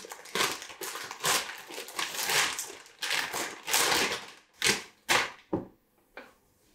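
Clear plastic packaging bag crinkling and rustling in a run of short rushes as a folded fabric blanket is pulled out of it and unfolded; the handling stops about six seconds in.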